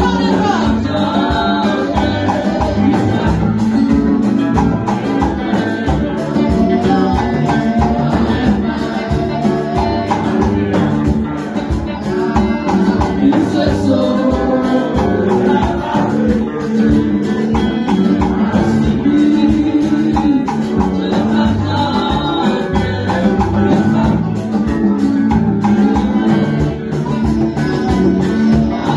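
Women's voices singing a gospel worship song into microphones, over instrumental accompaniment with a steady beat.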